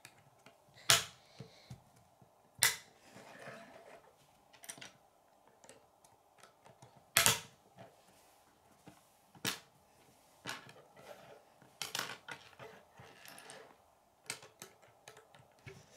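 Plastic K'nex pieces snapping together and being set down on a wooden tabletop: a sharp click every second or two, with quiet between and a few softer handling rustles.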